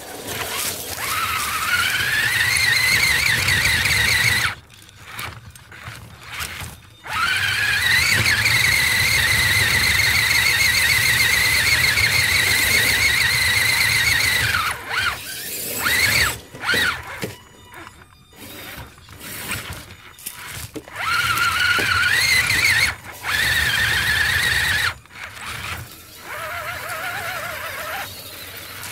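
Electric motor and gear drivetrain of a radio-controlled rock crawler whining under throttle. The whine rises in pitch as it spins up, then holds steady and high for several seconds at a time. It cuts out and comes back in several bursts as the crawler inches up a dirt bank.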